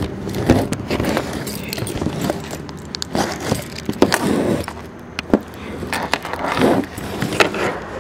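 Packing tape being ripped and scraped off a cardboard package with a key, with irregular clicks, scrapes and rustling as the box is handled.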